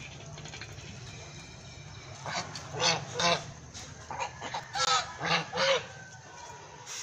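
White domestic geese honking: a run of short honks, three close together about two seconds in, then a quicker string of about five more from about four seconds in.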